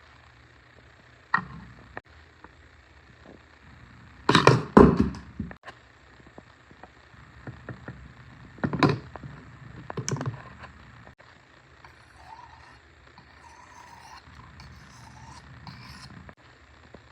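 A Victorinox Swiss Army knife blade scraped across a Lansky hard Arkansas sharpening stone in a few separate strokes. The loudest comes about four seconds in, and others follow near nine and ten seconds.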